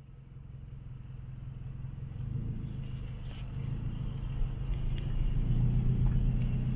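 A car running, with a steady low engine and road hum that fades in from near silence and grows steadily louder.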